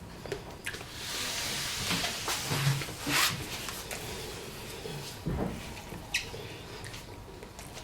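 Crunchy food being bitten and chewed close to the microphone, with a loud crunch about three seconds in and small clicks of eating and utensils around it.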